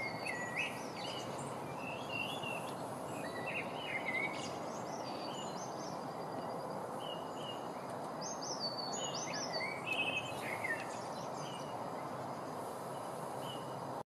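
European goldfinches twittering and calling in short, scattered chirps over a steady background hiss, with the busiest twitter near the start and again about two-thirds of the way in.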